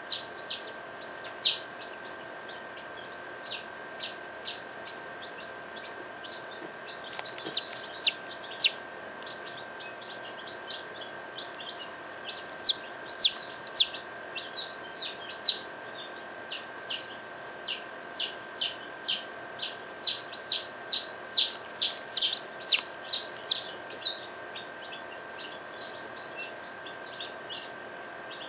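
Newly hatched chick peeping in an incubator: short, high, falling peeps, scattered at first, then a quick run of about two a second through the middle and later part that stops a few seconds before the end. A steady hum from the incubator runs underneath.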